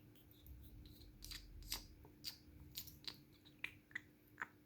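Faint, irregular metallic clicks and ticks, about eight in four seconds, from a five-pin tumbler lock being worked on with small tools during disassembly.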